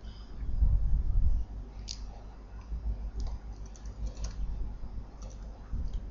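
Computer keyboard typing: a scattering of separate keystroke clicks as a short word is typed, over a steady low hum, with a louder low rumble near the start.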